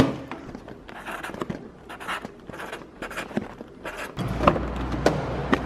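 A plastic kitchen bin lid knocked shut, followed by a string of short scratchy handling strokes. About four seconds in a low hum comes in, and a felt-tip marker scratches across a cardboard box.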